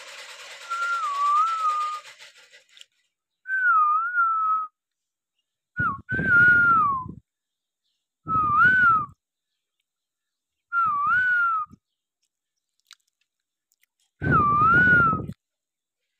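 A person whistling a short wavering phrase, dipping and rising in pitch, repeated about six times with pauses of a second or two between.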